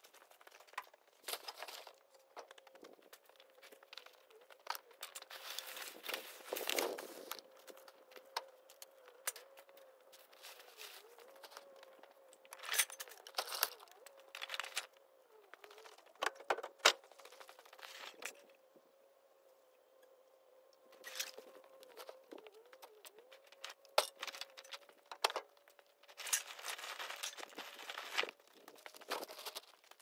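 Plastic trash bags of construction waste crinkling and rustling as they are handled and tossed into a dump trailer, with scattered sharp knocks and clatter of debris. A faint steady hum runs underneath.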